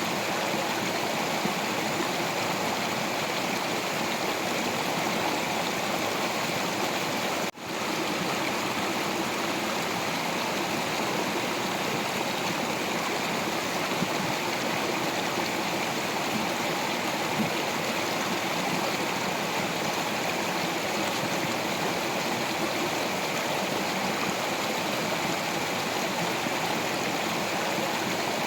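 Stream water flowing over rocks: a steady, even rushing and babbling, briefly cutting out for a split second about seven and a half seconds in.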